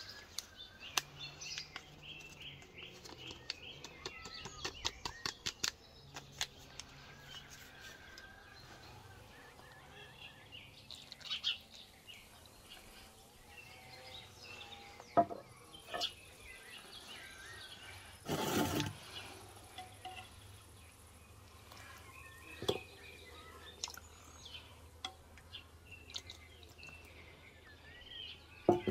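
Small birds chirping in the background. In the first few seconds a paper sachet crinkles as it is opened and emptied over flour. Later come a few sharp clicks and one short, louder rustle of hands working at the bowl.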